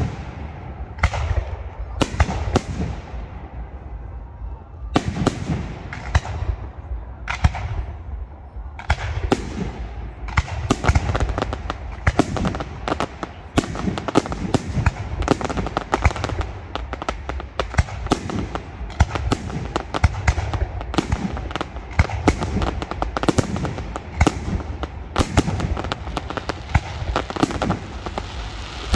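Aerial fireworks display: shell bursts banging about once a second, becoming a dense barrage of bangs and crackling from about nine seconds in.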